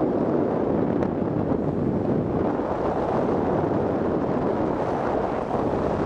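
Steady wind noise buffeting the microphone during a parasail flight, an even rushing with no distinct events.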